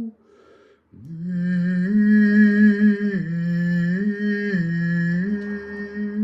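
A man's voice singing a slow, wordless sound-healing melody rich in overtones. After a brief pause about a second in, he holds long notes that step down and back up between two pitches several times.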